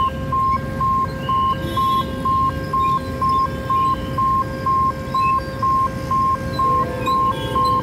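Railway level-crossing warning beeper sounding a steady electronic beep about twice a second, with motorbike and scooter traffic rumbling beneath it as the boom barriers go up.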